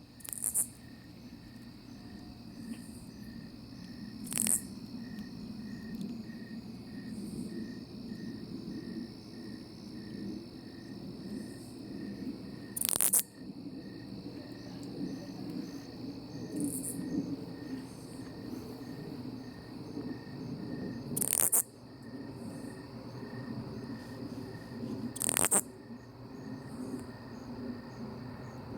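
A katydid calling close by: loud, short, harsh rasps repeated at uneven gaps of several seconds. Behind it runs a faint steady pulsing chorus of other night insects.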